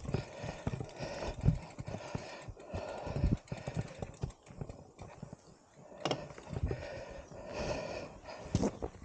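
Irregular footfalls and knocks, several a second, with heavy breathing coming in repeated gusts, from someone labouring up a rough, steep track.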